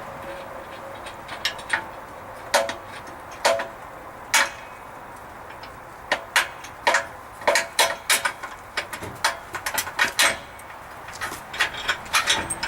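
Hand tools working on the steel bumper's mounting bolts: irregular sharp metal clicks and clinks, a few ringing briefly, some in quick runs, as the nuts are run down.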